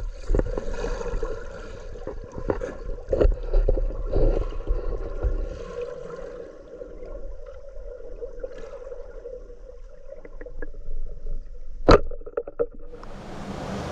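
Muffled water gurgling with scattered knocks and a steady hum, the sound of a camera recording underwater in a river; one sharp click comes about twelve seconds in. Near the end it cuts to a brighter, steady rushing noise.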